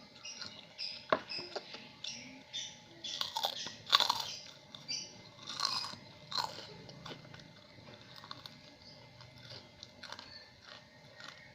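A person biting and chewing crunchy food close to the microphone, with a run of sharp crunches in the first half that give way to softer, sparser chewing.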